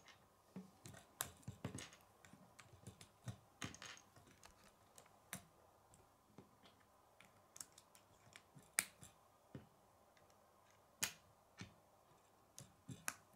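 Plastic K'nex rods and connectors clicking and snapping together as a model is built, with small pieces knocking on a wooden tabletop: irregular sharp clicks, a few much louder snaps.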